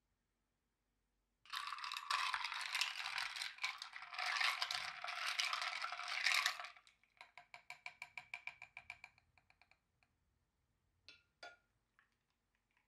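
Ice cubes rattling and clinking against a tall glass as an iced latte is stirred with a long spoon, a dense clatter for about five seconds that slows into single ringing clinks about five a second and dies away. Near the end, two sharper clinks as the spoon is set down on the plate.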